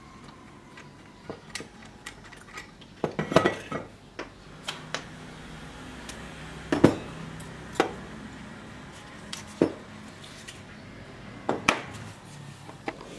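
Metal parts and tools clinking and knocking as they are handled and set down on a work surface, in irregular single clicks with a quick cluster about three seconds in.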